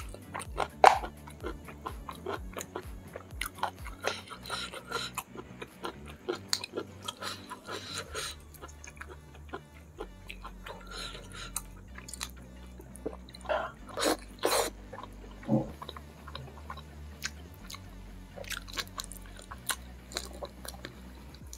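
Close-miked wet chewing, lip smacks and sucking of a person eating gulai (spicy curry) red snapper head by hand. Irregular clicks and smacks run throughout, with a sharp loud smack about a second in and a cluster of louder ones around two-thirds of the way through.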